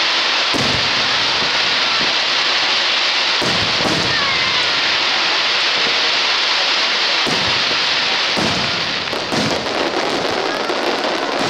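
Aerial firework shells bursting overhead: about half a dozen separate booms over a constant dense hiss.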